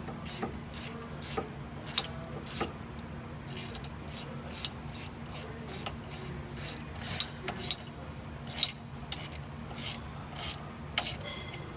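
Hand ratchet wrench clicking as a socket tightens the U-bolt nuts on a leaf spring plate, in short strokes of about two clicks a second, over a steady low hum.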